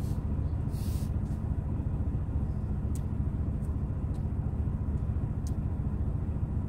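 A steady low rumble, with a brief rustle about a second in and a few faint clicks.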